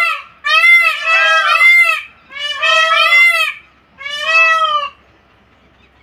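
Indian peafowl calling: three bouts of rapid, repeated, nasal, honking calls, about four notes a second, stopping about five seconds in.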